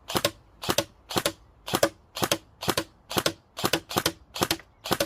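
Airsoft gun firing metal 6mm BBs in a steady string of eleven shots, about two a second. Each shot is a sharp double crack.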